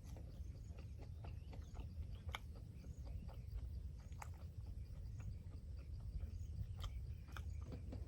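A person chewing food, with scattered small wet clicks and smacks over a low steady rumble.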